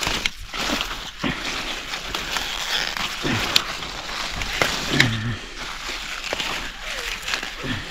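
Mustard green leaves rustling and crisp stems snapping as the greens are picked by hand, with a few sharp clicks.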